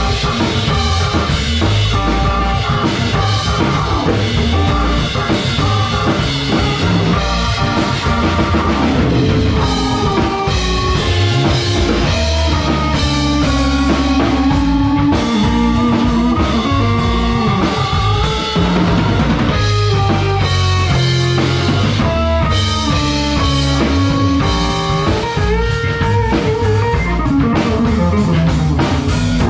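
A small band playing instrumental fusion live: a drum kit, a hollow-body electric guitar carrying held melody notes, a Tobias electric bass and a keyboard.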